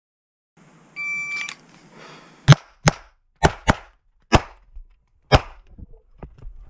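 A shot timer's start beep about a second in. Then six shots from a 9mm SPS Vista Star open pistol loaded to major power factor, the first four in two quick pairs, echoing in an indoor range.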